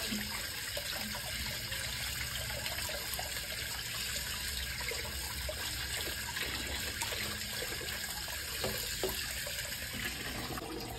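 Tap water running steadily, splashing over hands and into a full plastic bowl of water as crab pieces are rinsed clean of mud.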